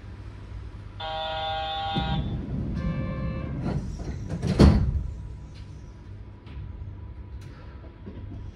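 Yurikamome train's door chime, two tones, followed by the sliding doors shutting with a sharp thump about four and a half seconds in, over the low hum of the standing train.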